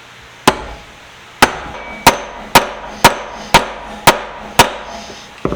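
A hammer striking a pin to drive it into the pipe wrench's jaw, fixing the jaw back on. Eight sharp metallic strikes come at about two a second, each with a short ring, followed near the end by a few lighter taps.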